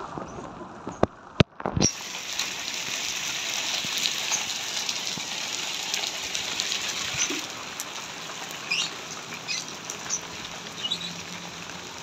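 Steady hiss of rain falling, with a few sharp knocks about a second in and occasional faint short bird chirps.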